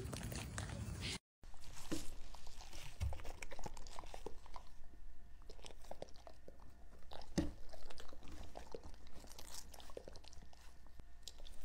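Two German shepherds licking and chewing small bits of food off a tabletop, close up: irregular wet smacking and licking clicks.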